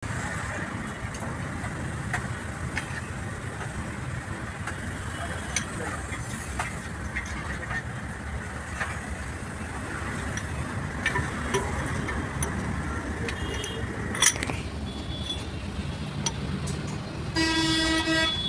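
Steady traffic and street noise with scattered light clicks and a sharp knock about fourteen seconds in, then a vehicle horn honking for about a second near the end.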